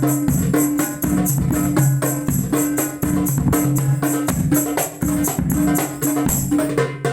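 Hadroh percussion ensemble playing a steady, driving rhythm on tuned frame drums and bass drum, with bright jingles over the strokes.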